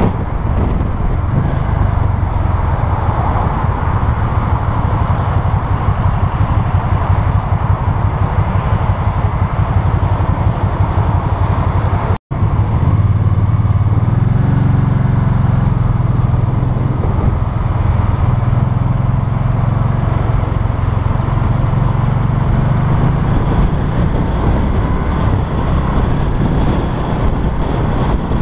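Can-Am Spyder RS-S three-wheeler's V-twin engine running under way in city traffic. The sound drops out for an instant about twelve seconds in, and after that the low engine hum is steadier.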